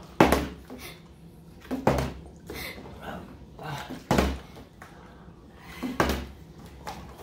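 Partly filled plastic drink bottle flipped onto a wooden tabletop again and again: four hard thuds about two seconds apart, the bottle failing to land upright, with softer knocks between as it is picked up.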